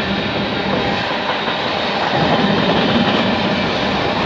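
Freight train cars, tank cars and boxcars, rolling past: a steady noise of steel wheels running on the rails, a little louder about two seconds in.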